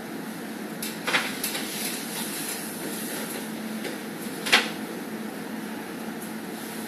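Steady background hiss, with a few brief scrapes of a marker writing on a whiteboard, the loudest about four and a half seconds in.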